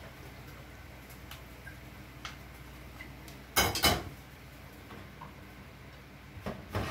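Kitchenware clattering as a plate of spaghetti with mussels is served: a few light taps, then a loud clatter of cookware on the stove about three and a half seconds in, and a few knocks near the end as the plate is moved on the steel counter.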